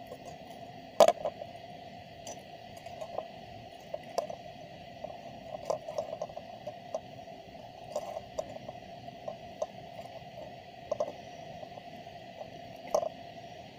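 Irregular small clicks and ticks of enamelled copper wire and pliers being worked off a toroidal transformer core, the sharpest about a second in, over a steady faint background noise.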